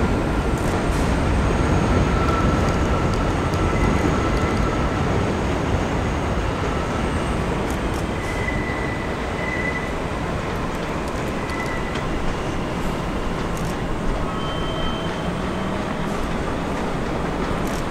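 Kawasaki R211A subway train rolling slowly: a steady rumble, with faint high wheel squeals coming and going.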